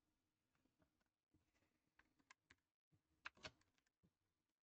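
Near silence with a few faint computer-keyboard keystrokes, a pair of them close together about three and a half seconds in.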